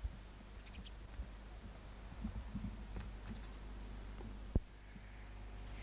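Handling noise from a handheld 1984 JVC GR-C1 VHS-C camcorder picked up by its own microphone: a steady low hum under scattered soft knocks, with a sharp click about four and a half seconds in.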